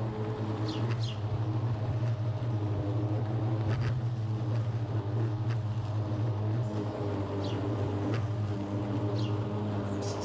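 Kobalt 80-volt brushless battery push mower running with a steady hum, its 21-inch deck's blade cutting through tall, overgrown grass. A few short high chirps and occasional light ticks sound over it.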